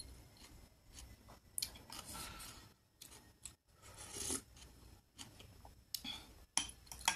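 Short slurps of soup from a ceramic soup spoon, a few seconds apart, then the spoon clicking a few times against a glass bowl near the end.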